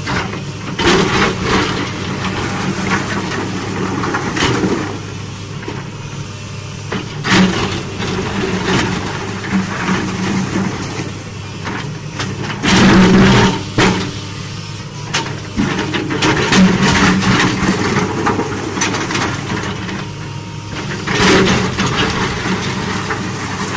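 Excavator's diesel engine running steadily under load while its steel bucket scrapes and knocks against broken concrete slabs and rocks in shallow water, in repeated clattering strikes, the loudest about halfway through.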